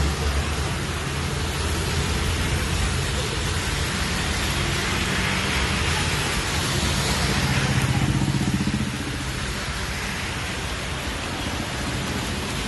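Steady hiss of heavy rain with traffic on a wet road. A vehicle's engine grows louder between about seven and nine seconds in, then fades.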